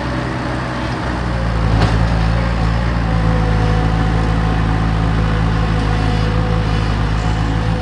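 Bobcat skid-steer loader's engine running steadily under work while digging, with a thin steady whine above the engine note and a single sharp knock about two seconds in.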